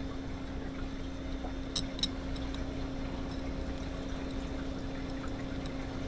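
Two light metallic clicks close together about two seconds in, with a few fainter ticks after, as bolts are handled and threaded by hand into the head cover of an air horn compressor, over a steady low hum.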